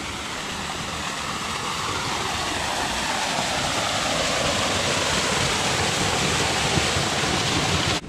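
Small waterfall pouring from a stone wall into a stone pool: a steady rush of splashing water that grows louder as it comes closer, then cuts off suddenly at the end.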